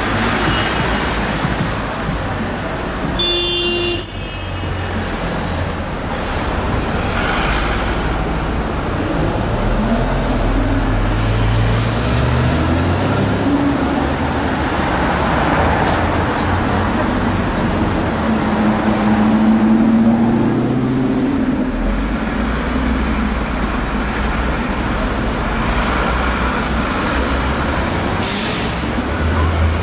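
City street traffic: car and bus engines running in slow-moving traffic, with a short high-pitched tone about three seconds in and an engine revving up near the end.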